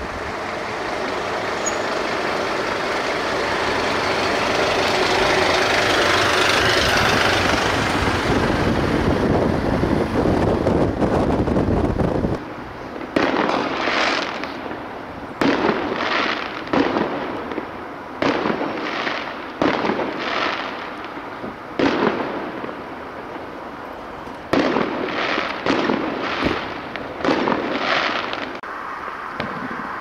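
A Scania fire engine passing close, a broad rush of noise that swells to a peak about six seconds in and fades, then cuts off abruptly. After that, a string of fireworks explosions, sharp bangs about every second, each trailing off.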